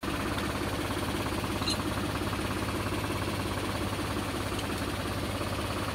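Tractor-mounted, PTO-driven Vibrope EKO tree shaker running, its shaker head rattling in a rapid, steady pulse as it jerks the steel cable, over the tractor's engine.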